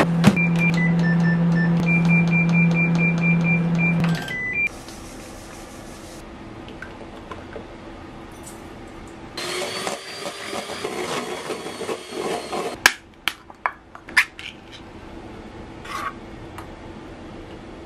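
Hitachi MRO-S1KS microwave oven humming steadily while its control panel gives a quick run of short beeps; the hum stops suddenly with one last beep. Later, liquid is poured into a stainless steel bowl for about three seconds, followed by a few sharp clinks and knocks of utensils against metal.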